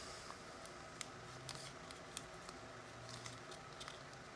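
Faint, scattered clicks and light rustling of a thick die-cut trading card being handled and pushed into a plastic card holder that it is too thick to fit.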